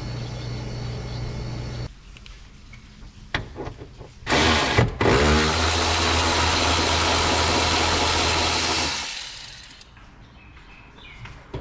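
A vehicle engine idling steadily, whose hum stops about two seconds in; after a few clicks a power tool spins up with a rising whine, runs loudly for about five seconds, then winds down.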